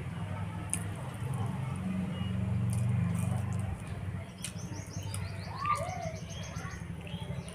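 Birds chirping: a quick run of high, repeated chirps about halfway through and a few lower curved calls, over a steady low hum.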